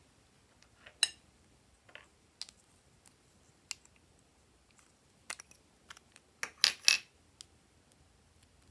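Small plastic lipstick tubes clicking and tapping in the hands as their caps are pulled off: one sharp click about a second in, scattered clicks, then a quick run of the loudest clicks near the end.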